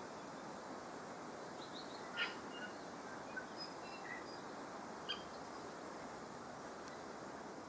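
Short, scattered bird calls and chirps, one louder call about two seconds in, over a steady background hiss.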